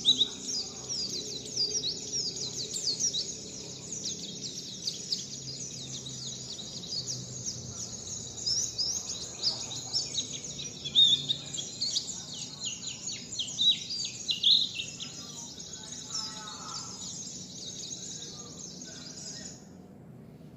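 Small songbird singing a fast, continuous run of high chirps, twitters and short whistled sweeps, a song pattern in the 'wit wit zipeer' style; it stops abruptly about a second before the end.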